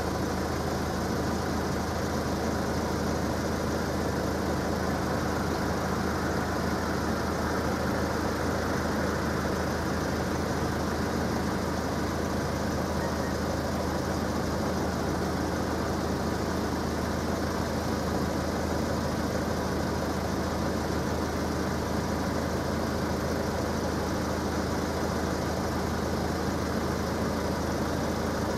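Car engine idling steadily, with a constant low hum.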